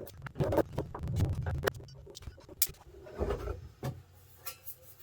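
Small hand tools clicking and scraping on a preamplifier's case as it is opened up, with low knocks and bumps from the unit being handled. The clicks come thickest in the first two seconds, and there is a scuffle of handling noise a little past the middle.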